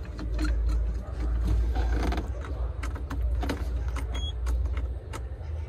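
Scattered clicks and knocks from the Iseki TR633 tractor's key and controls being worked, over a steady low rumble, while the engine will not crank; the starter circuit is dead from a blown fuse.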